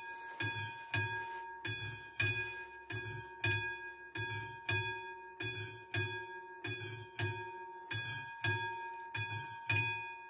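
Classic mechanical warning bell of a Czech railway level crossing striking steadily at about two strokes a second, each stroke ringing on with a low knock beneath it: the crossing's warning that a train is approaching.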